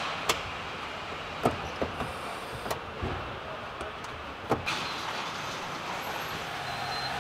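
Car assembly-hall ambience: a steady hum of machinery with scattered sharp clicks and knocks, most of them in the first half.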